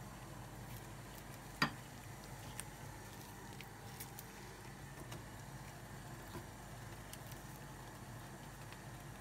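Light taps and clicks of a metal spoon working thick melted chocolate out of a bowl and onto a donut, with one sharp click about one and a half seconds in and a few softer ticks after, over a faint steady low hum.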